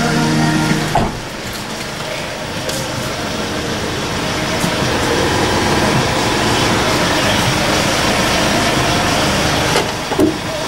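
Hyundai H-1 CRDi diesel engine idling, heard from inside the van as a steady, even running noise. There is a short knock about ten seconds in.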